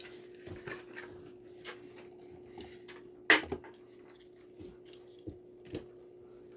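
Scattered light clicks and taps from handling a die-cast toy car and its plastic blister packaging, with one sharper click about three seconds in, over a faint steady hum.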